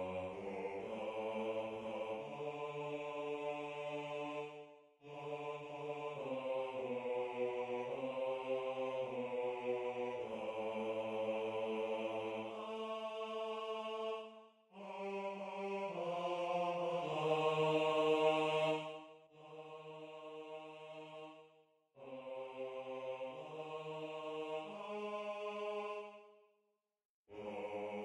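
Choral part-song played back by MuseScore's synthesized choir voices: sustained four-part chords on 'aah', with the bass line brought forward as a rehearsal guide. The music moves in phrases of several seconds, with short breaks between them, about five, fourteen, twenty-two and twenty-seven seconds in.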